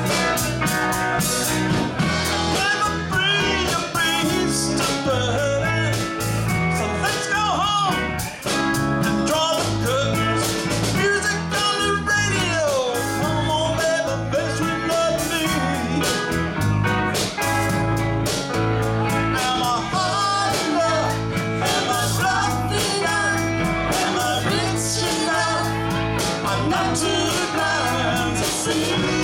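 Live band playing a song: a woman sings lead over electric guitars, electric bass, a Korg Karma keyboard and drums, with the singing line sliding and falling in pitch at times.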